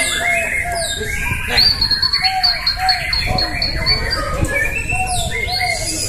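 Many white-rumped shamas singing at once from cages hung side by side: a dense, overlapping mix of whistles, glides and short repeated low notes. A high held whistle comes in about a second and a half in.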